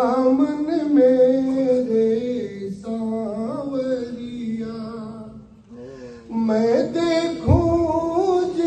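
A man singing a Hindi devotional bhajan into a microphone in long, held notes that waver and slide in pitch, breaking off briefly about halfway before going on. A short low thump is heard near the end.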